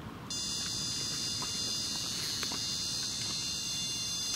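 Electronic carp bite alarm sounding one continuous high-pitched tone, starting a moment in and cutting off sharply: the sign of a fish picking up the bait and running.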